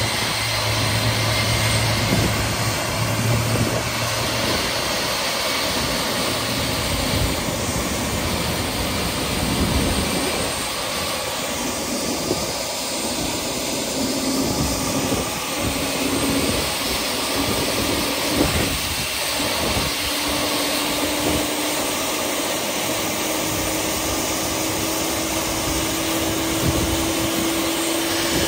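Boeing 747-8 turbofan engine running on the ground during an operational check after an engine change: a steady rush of noise with a low hum in the first few seconds and a tone that slowly rises in pitch through the second half.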